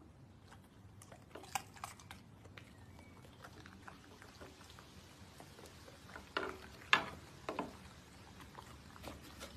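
Faint scattered taps and crunches of a cucumber being sliced and handled on a wooden cutting board, with the sharpest crack about seven seconds in.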